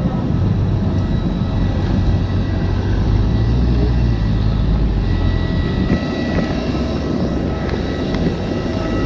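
Jet airliner engines running steadily: a dense low rumble with a thin, steady high-pitched whine over it.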